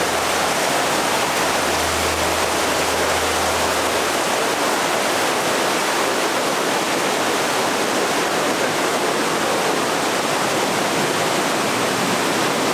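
Steady rush of a rain-swollen river cascading through a narrow rock gorge into a plunge pool (the Devil's Cauldron waterfall), an even, unbroken water noise with no let-up.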